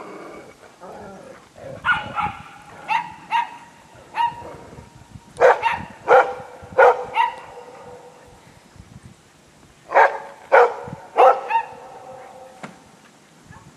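A dog barking in short bouts of three or four loud barks, with pauses of a few seconds between bouts.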